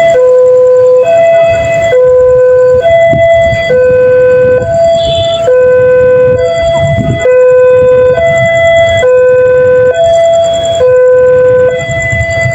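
Railway level-crossing electronic siren sounding its loud two-tone hi-lo alarm, switching between a lower and a higher tone about every second, the warning that a train is approaching the crossing.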